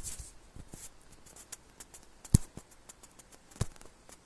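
Faint background hiss with a few scattered sharp clicks. The loudest comes a little past two seconds in and another about a second later.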